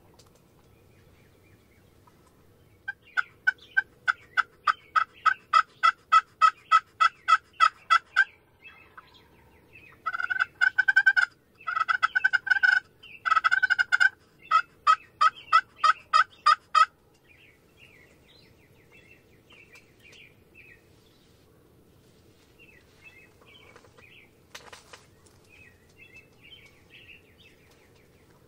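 Turkey calling close by: a run of about twenty evenly spaced yelps, then three quick rattling bursts like gobbles, then a few more yelps. Faint songbird chirps follow in the second half.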